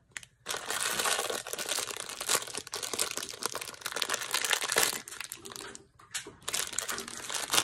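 Foil blind bag crinkling and rustling as it is torn open and worked by hand, busiest in the first few seconds, then in shorter bursts.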